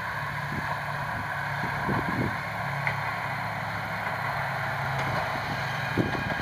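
Kominato Railway KiHa 200 diesel railcar running past with its engine humming steadily, with a few short knocks about two seconds in and again near the end.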